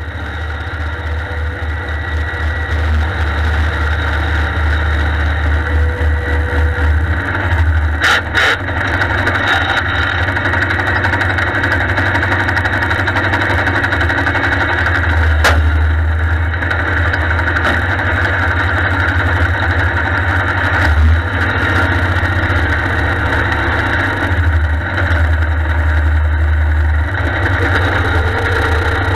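Allis-Chalmers 160 tractor's three-cylinder diesel engine running steadily under way through snow, with a deep pulsing rumble and a few brief knocks about eight seconds in and again midway.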